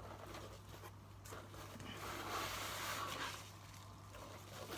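Faint rustling of bubble wrap being pulled out of a packing box, swelling about two seconds in for a second or so.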